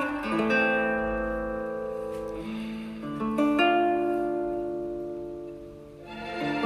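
Background music: plucked guitar chords, two of them held and slowly fading, the second struck about halfway through.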